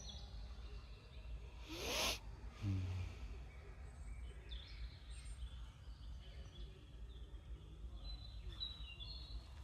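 Several small birds chirping and calling over a steady low rumble. About two seconds in there is a brief rising whoosh, and just after it a short low hooting call.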